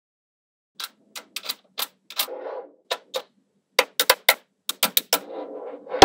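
Small magnetic balls snapping together as strips of them are pressed onto a magnet-ball wall: an irregular run of sharp clicks starting about a second in, with short stretches of rattling between them.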